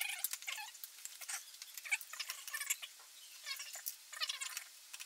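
Short irregular squeaks, scrapes and clicks of metal and plastic parts being worked and pulled loose from an iMac G5's internal frame.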